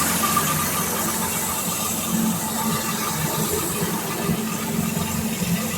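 Sawmill engine running at a steady idle between cuts, with light mechanical clicking and rattling.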